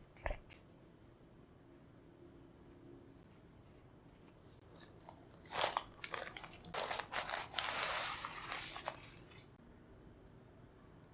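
Packaging handled while a keyboard is unboxed: a single sharp click just after the start, then about four seconds of crinkling and rustling of wrapping in the second half.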